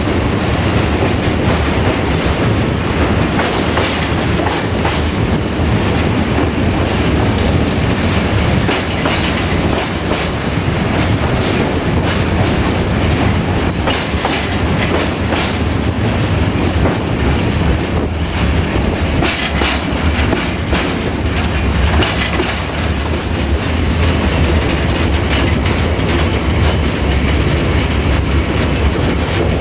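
Ballast wagons of a freight train rolling along the track, heard from on board: a steady rumble of steel wheels on the rails with repeated clicks as the wheels pass over rail joints.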